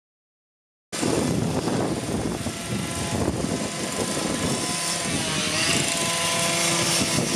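Steady running drone of construction machinery on a tram-track worksite, starting abruptly about a second in, with a held machine tone that dips and recovers slightly about five seconds in.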